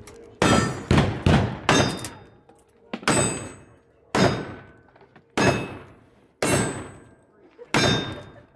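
A string of about nine revolver shots fired at roughly one a second, a few in quick pairs, with a brief metallic ring after several of them as steel targets are hit.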